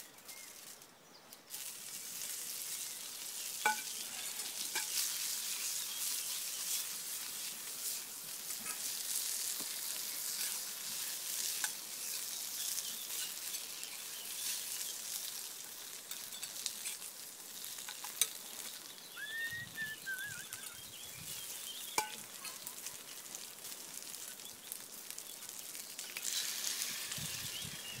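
Nettles frying in a hot pan over campfire embers: a steady sizzling, crackling hiss that starts about a second and a half in, with a few sharp clicks.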